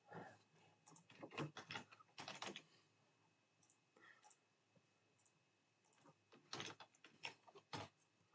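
Faint computer keyboard typing and mouse clicks, in two short runs of keystrokes: about a second in and again near the end.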